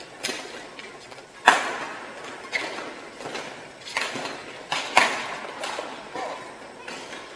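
Badminton rackets striking a shuttlecock in a fast doubles rally: about seven sharp smacks, roughly a second apart, each ringing in the hall's echo. The two hardest hits come about a second and a half in and about five seconds in.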